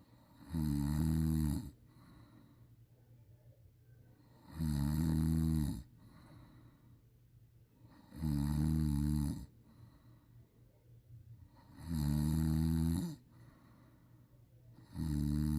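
A person snoring loudly in sleep, one snore about every four seconds. Each snore is a low, wavering drone about a second long; there are four full snores and a fifth begins near the end.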